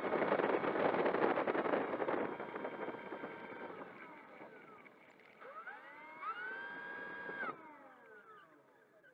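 Brushless electric motor and propeller of an E-Flite Air Tractor RC plane spinning up to a loud whine with rushing prop wash, then easing off. It spins up again to a held, higher whine that cuts off sharply past the middle and winds down as the propeller stops.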